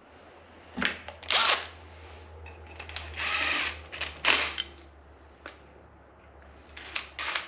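Cordless impact wrench run in several short bursts, running bolts into an engine, over a low steady hum that stops near the end.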